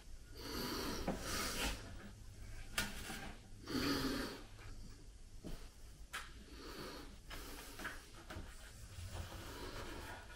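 Quiet handling sounds: a roll of painter's tape being shifted and rubbed on a glossy porcelain tile, with a couple of light clicks.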